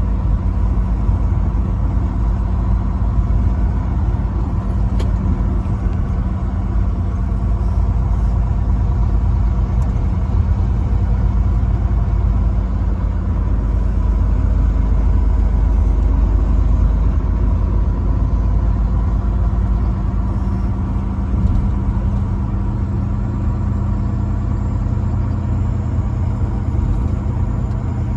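Motor vehicle driving at a steady pace: a low engine and road rumble with a constant drone, unchanging throughout.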